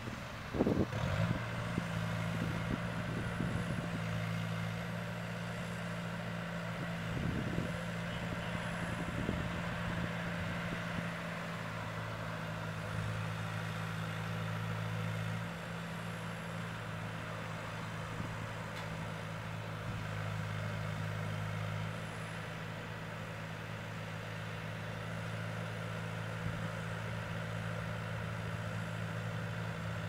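Construction machinery engine running steadily at a low, even hum, with a passing car swelling up in the first second or two. There are a few scattered knocks and clanks from the building work.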